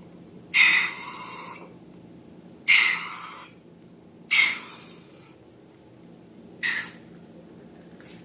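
Slime being squeezed and worked by hand: four short, sudden squishing noises about two seconds apart, each fading quickly.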